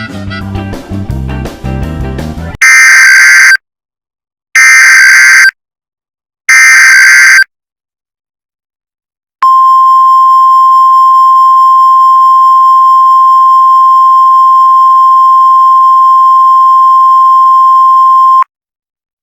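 Music cuts off about two and a half seconds in. Three one-second bursts of Emergency Alert System SAME header data tones follow, about a second apart. After a pause, a single steady alert tone just above 1 kHz, the NOAA Weather Radio 1050 Hz warning alarm, sounds for about nine seconds and stops abruptly.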